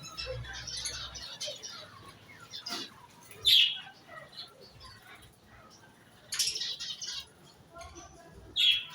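Aviary cage birds chirping, a scatter of short high calls with a loud sharp call about three and a half seconds in, a busy flurry of chirps a little after six seconds, and another loud call near the end.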